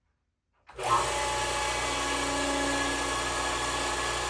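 Fortress 10-gallon ultra quiet air compressor kicking on about a second in after being plugged in, its motor and pump then running steadily as it fills the tank. The running is quiet enough to hold a conversation over.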